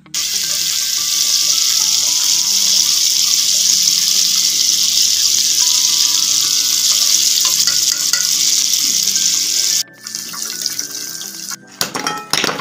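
Flour-coated chicken wings deep-frying in hot oil, a loud steady sizzle that cuts off about ten seconds in. Softer frying follows, then a few sharp knocks near the end.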